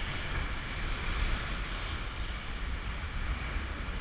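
Ocean water washing and surf, with wind rumbling on the microphone: a steady, even wash of noise.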